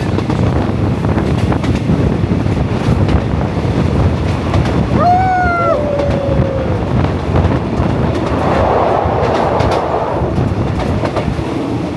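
Passenger train carriage running along the rails: a steady, loud rumble with the clicks of wheels passing over rail joints. About five seconds in, a short pitched tone sounds and dips slightly for under two seconds.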